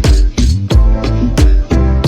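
Background music with a heavy, steady beat: deep kick drum about three times a second under sustained bass and pitched instrument notes, no vocals.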